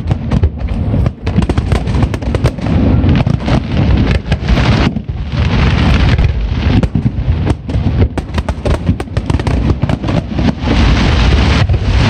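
Aerial fireworks display: a dense barrage of bangs in quick succession over a continuous low rumble.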